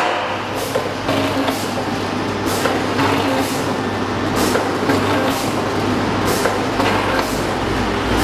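Liquid jelly packaging machine running: sharp clacks repeat every second or so over a steady hum and hiss.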